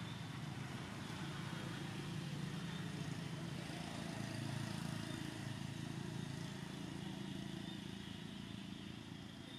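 Low, steady hum of a motor vehicle's engine, swelling gently in the middle and easing off toward the end, as if passing at a distance.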